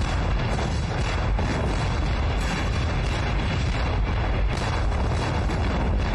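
Artillery barrage: a battery of field guns firing shot after shot in quick succession, the blasts overlapping into one continuous rumble with no pause.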